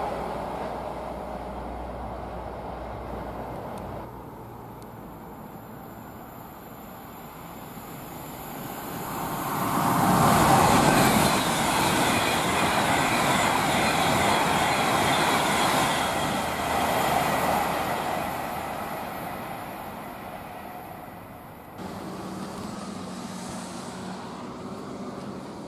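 A Class 57 diesel locomotive's engine gives a low rumble for the first few seconds. Then an Avanti West Coast express train passes: wheel and rushing-air noise builds about eight seconds in, stays loud for several seconds, and fades away.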